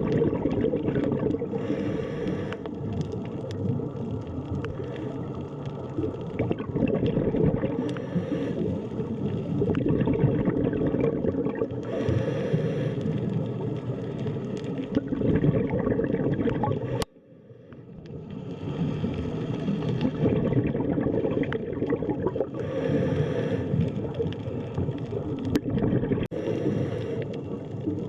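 Underwater ambience: a steady muffled low rumble with bubbling, hissy swells every few seconds. A little past halfway it cuts out abruptly and fades back in.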